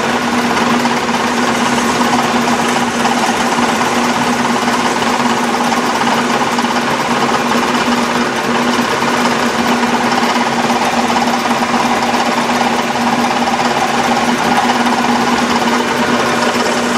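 Atlas metal lathe running steadily with a constant hum while an insert cutting tool faces the end of a metal bar held in a three-jaw chuck.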